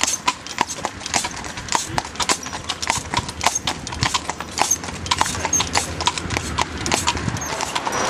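Horses' hooves clip-clopping on an asphalt road, several hoofbeats a second: a harnessed carriage horse and a ridden horse on the move.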